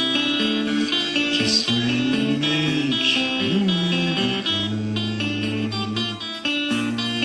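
Guitar music: plucked, held notes and chords, with a few notes sliding up and down in pitch partway through.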